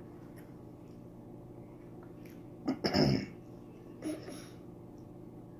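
A woman clears her throat loudly once, about three seconds in, then makes a shorter, softer throat sound a second later, over a faint steady hum.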